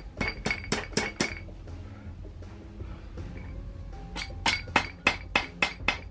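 Sharp metallic clinks, about four a second, from a Ducati Hypermotard cylinder head being worked loose from the engine. They come in two runs, one at the start and one near the end, with a quieter gap between.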